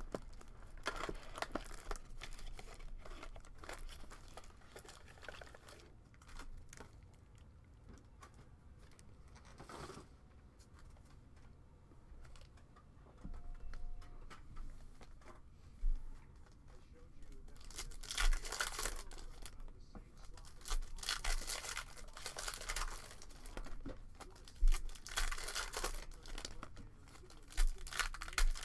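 Foil trading-card pack wrappers crinkling and tearing as packs are handled and torn open, with louder stretches of crinkling in the last ten seconds.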